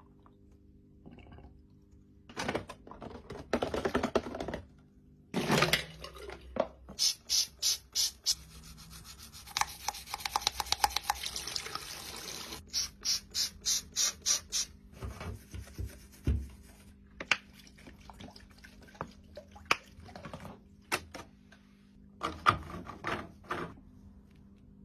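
A washing machine's drain filter being cleaned under water: splashing and rubbing in bursts, with runs of quick rhythmic scrubbing strokes.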